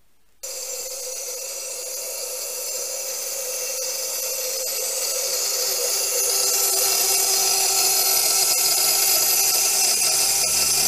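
Ultrasonic cavitation erosion tester running: the 20 kHz sonotrode tip vibrating in water gives a loud, steady, high-pitched hiss and whine of cavitation. It starts about half a second in and grows a little louder.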